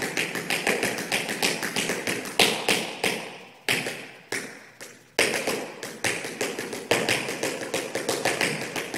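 Tap shoes striking the floor in a fast run of shuffles and ball changes, several crisp taps a second. There is a brief lull with only a few taps a little before halfway.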